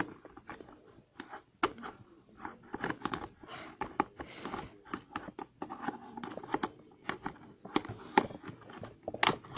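Hard plastic parts of a toy shark clicking, scraping and creaking irregularly as its loose top jaw is forced back into the body. It resists, giving many short clicks and rubs.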